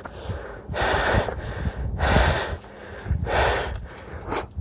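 A mountain biker's heavy breathing while pedalling up a steep climb, hard breaths about once a second.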